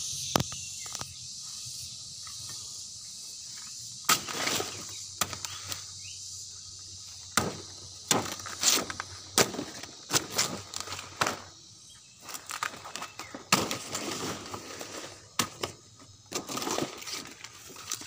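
Machete chopping and hacking at a fallen banana plant's stalk and leaves: a run of sharp, irregular chops with rustling and crackling between them, starting a few seconds in. Insects chirr steadily in the background.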